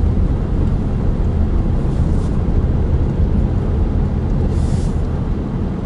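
Steady low rumble of a car's engine and tyres heard from inside the cabin while driving slowly along a road.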